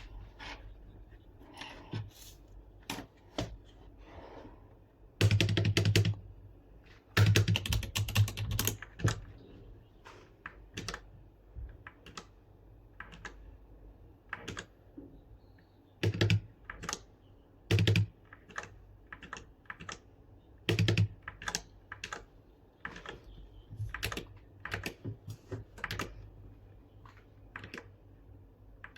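Typing on an MK-Star61 mechanical keyboard: scattered single keystrokes, two fast runs of typing a few seconds in, and a few louder, deeper single strokes around the middle.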